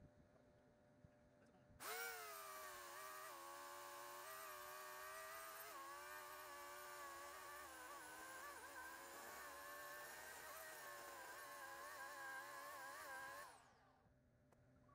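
Corded electric chainsaw starting up about two seconds in and running as it cuts through a log, its motor whine dipping and wavering under the load of the cut, then winding down with a falling pitch near the end.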